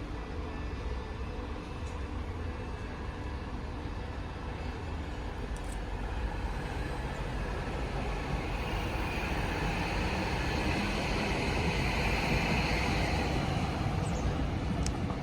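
Outdoor traffic rumble with a vehicle passing: the noise swells for several seconds, peaks a couple of seconds before the end, then eases off.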